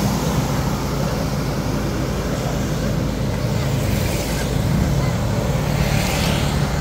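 Vehicle engines running steadily, a low hum over road noise.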